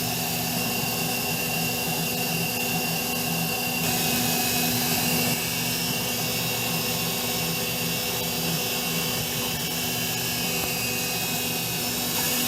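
CNC milling machine's spindle running steadily at full speed as a 10 mil, 10-degree V-bit mills a thin brass sheet, a constant machine hum made of several steady tones.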